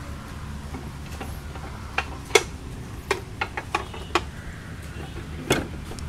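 Sharp metal clanks and knocks as the steel cage wheel and frame of a walk-behind tractor are handled: about eight irregular strikes from about two seconds in, the loudest near the start of them, over a low steady rumble.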